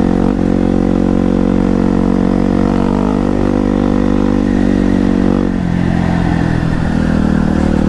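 Honda XR 250 Tornado's single-cylinder four-stroke engine running under steady throttle as the bike is ridden at speed on a dirt road. About five and a half seconds in, the note drops off as the throttle is eased, then starts to build again near the end.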